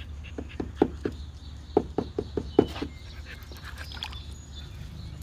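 A dog making quick, rhythmic mouth or breath sounds, about five a second, in two short runs that stop about three seconds in.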